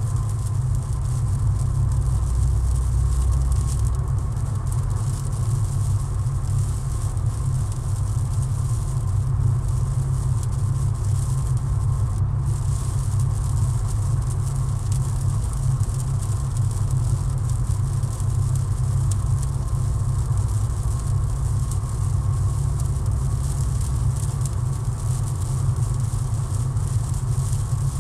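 Steady low road rumble and engine drone of a car cruising on a highway, heard from inside the cabin, with an even hiss of tyres on a wet road and rain over it.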